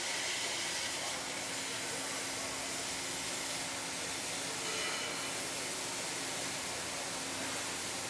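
Plasma torch of a CNC beam coping machine cutting through a steel beam: a steady hiss of the arc and cutting gas, with a faint steady hum underneath.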